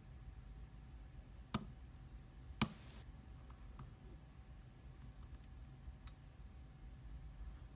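Pin-tumbler euro cylinder lock being picked with a hook under heavy tension: scattered small metallic clicks of pins moving in the plug. Two sharper clicks come between one and three seconds in, the second the loudest, followed by a few fainter ones.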